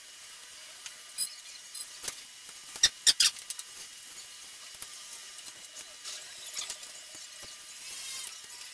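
Small sharp clicks and taps of plastic drone parts and electronics being handled during a hand repair of a DJI Phantom 4, loudest as a cluster of clicks about three seconds in, with a quick run of tiny clicks near the end.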